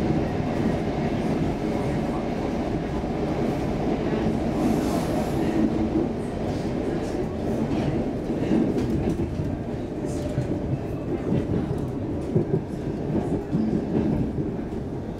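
Cabin noise of a Stockholm Metro C14 train car running along the track: a steady low rumble of wheels and running gear, with scattered short clicks.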